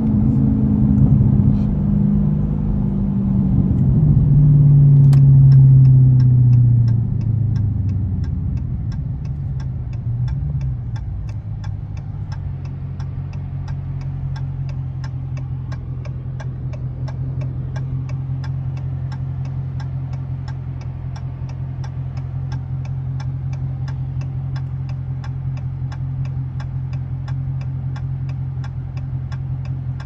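Dodge Scat Pack's 6.4-litre 392 Hemi V8, its note falling in pitch as the car slows, then idling steadily at a stop. A turn signal ticks about two to three times a second from about five seconds in.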